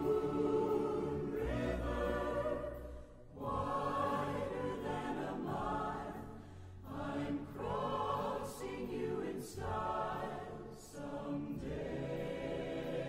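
Background music: a choir singing slow, swelling phrases that rise and fall every few seconds.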